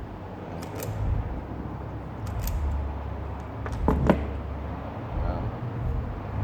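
Small handling clicks of hand tools on car wiring, with two sharp clicks in quick succession about four seconds in, over a low steady rumble.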